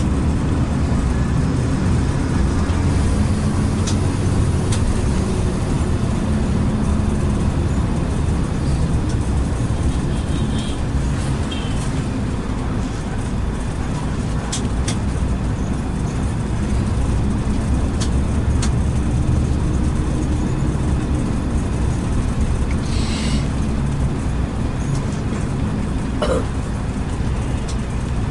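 Coach bus underway, heard from a passenger seat inside: steady low engine drone and road noise, with a few light clicks and a brief higher hiss about 23 seconds in.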